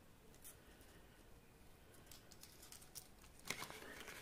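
Near silence with faint handling sounds: a few light clicks, then about three and a half seconds in a brief spell of small rustles and taps as a sticker sheet is picked up from among plastic and cardboard packaging.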